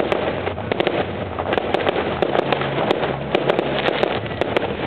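Fireworks display going off in a continuous barrage: many sharp cracks and pops, irregular and close together, over a dense steady crackle.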